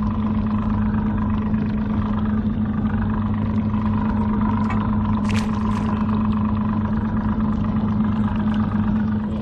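Boat engine idling with a steady hum, with a short clatter about five seconds in.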